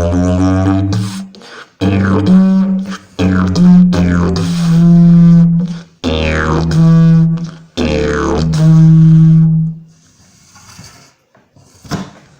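Fibreglass slide didgeridoo played in a series of short phrases: a low drone that jumps to a higher note, with overtones sweeping up and down as the mouth shapes the sound. The playing stops about ten seconds in, followed by a single sharp click near the end.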